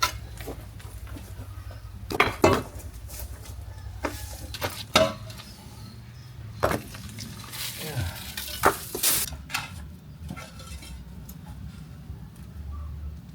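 Irregular knocks, clinks and scrapes of loose stone being handled and pulled from an old stone wall, with the sharpest knocks about two seconds in, about five seconds in and around eight to nine seconds in. A steady low hum runs underneath.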